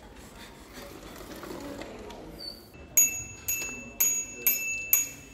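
Bicycle bell on a child's bike rung over and over, five bright dings about two a second, starting about three seconds in.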